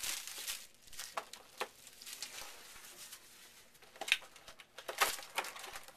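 A factory-sealed trading-card box being opened by hand: crinkling plastic wrap and rustling cardboard, with scattered sharp crackles.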